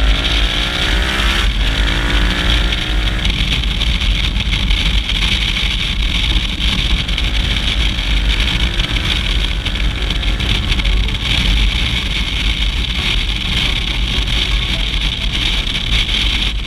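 KTM 990 Adventure's V-twin engine revving up with a rising pitch, changing gear about a second and a half in and rising again, then running on at speed. Heavy wind rumble on the action camera's microphone largely buries it.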